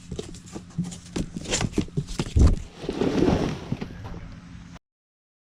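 Things being handled and moved around: a run of knocks and clatter with a heavy thump about halfway through and a burst of rustling, then the sound cuts off abruptly to silence near the end.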